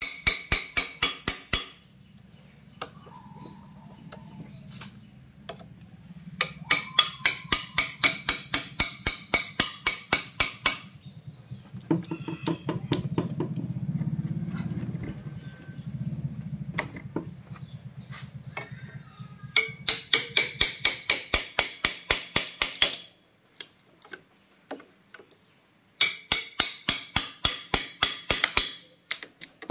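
A hammer beats rapidly on a thin metal rod driven down between an electric bike's lead-acid battery blocks. The blows come at about five to six a second, in four bursts of a few seconds each, with pauses between them.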